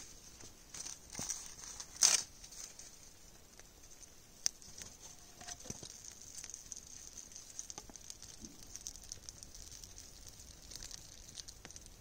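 Small kindling campfire crackling with many small pops over a steady hiss. One louder burst comes about two seconds in, and a single sharp pop a little after four seconds.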